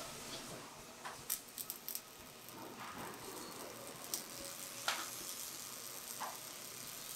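Robotic arc-welding torch hissing and crackling as it welds a steel car door frame in its jig, with a few sharp clicks scattered through: a quick cluster about a second in and single ones later, the sharpest just under five seconds in.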